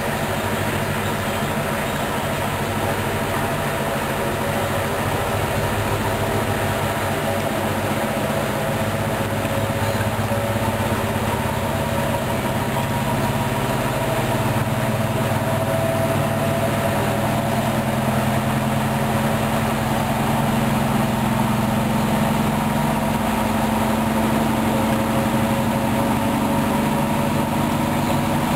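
Hoover front-loading washing machine spinning its drum during an intermediate spin between rinses: a steady motor-and-drum hum, its pitch edging up a little after about twenty seconds.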